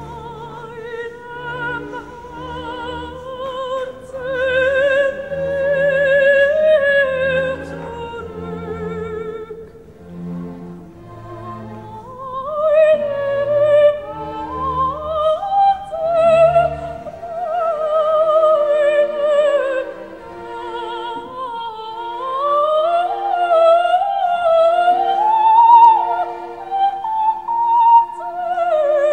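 Operatic singing with orchestral accompaniment: a voice with wide vibrato over sustained orchestra. Past the middle the low accompaniment drops away and the voice climbs higher.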